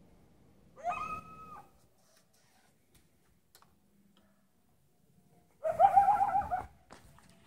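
Coyote calling twice: a short howl that rises in pitch and holds, about a second in, then a louder, wavering howl near the end, each about a second long.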